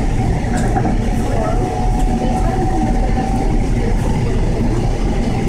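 LA Metro Gold Line light-rail train running, heard from inside the car: a steady rumble of wheels on track, with a faint steady whine for a couple of seconds in the middle.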